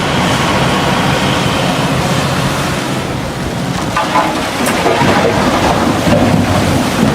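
Heavy diesel engine of a Caterpillar 352F excavator running under load, with a steady rushing noise over it. From about four seconds in there is a scattered clatter.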